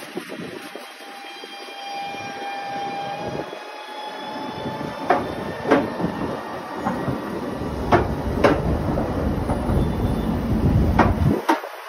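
Hess lightTram 25 bi-articulated trolleybus rolling past close by: a thin electric whine first, then a rumble that builds as it draws level, with several sharp knocks while it passes.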